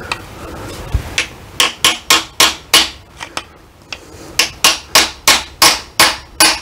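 Hammer blows on the end of a screwdriver held against the back cover of a Case 580SK transaxle, aimed at a stubborn cover that is not coming off easily. Sharp metallic strikes come about three a second in two runs, with a pause in the middle.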